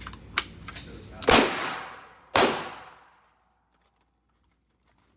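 Two loud gunshots about a second apart, each trailing off in a long echo, after a couple of fainter sharp cracks.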